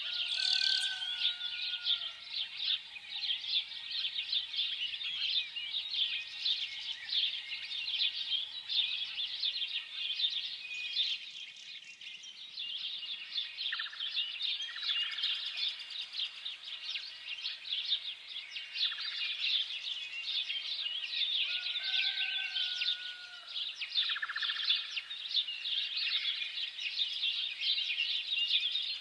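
Many small birds chirping together in a dense, continuous chorus of high twittering. A lower whistled call of about a second sounds twice, once near the start and once about two-thirds of the way through. The chorus briefly thins a little before halfway.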